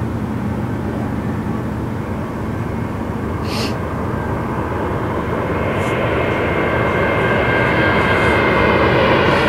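Low-flying airplane approaching overhead, its engine noise growing steadily louder, with a high whine coming in over the last few seconds.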